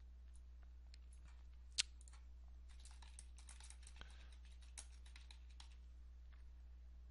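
Faint typing on a computer keyboard, a quick run of keystrokes over a low steady hum. A single louder click comes just before the typing starts.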